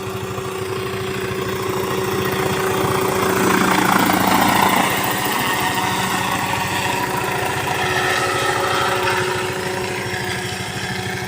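Small unmanned crop-spraying helicopter running, its engine and rotor giving a steady, fast-pulsing drone that grows louder to about four to five seconds in, then eases a little.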